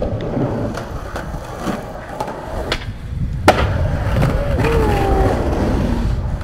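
Skateboard wheels rolling over concrete in a steady rumble that grows louder through the middle, with one sharp clack about three and a half seconds in.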